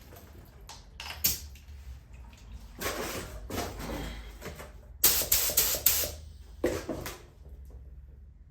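LVLP spray gun spraying 2K primer in short trigger-pulled bursts of hiss, testing the spray pattern, with a quick run of several spurts about five seconds in.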